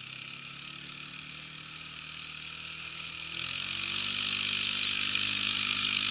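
Kawasaki Workhorse 300 quad bike's engine running steadily as it drives with a spreader, with a hiss over it. It gets louder from about halfway as the bike comes closer.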